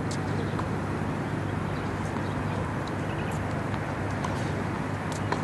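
Steady outdoor background noise with a low hum, broken by a few faint sharp ticks.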